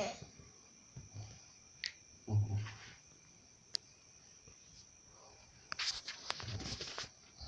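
A steady high thin trill, like a cricket's, with irregular sharp clicks and dull low thumps over it, the clicks crowding together near the end.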